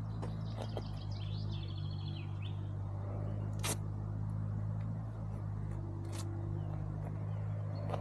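Brixton Cromwell 125's air-cooled single-cylinder engine idling steadily. A bird chirps for a couple of seconds near the start, and there are two sharp clicks.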